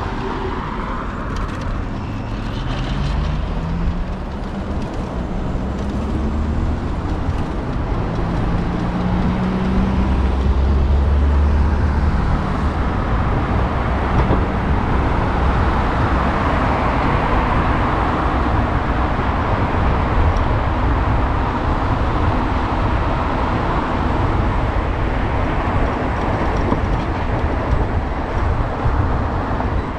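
Street traffic heard from a moving bicycle: a car pulls away through the junction, its engine rising in pitch a few seconds in, and a vehicle's low rumble swells and fades around ten seconds in. Under it runs a steady rushing hiss of road and air noise that grows a little louder later on.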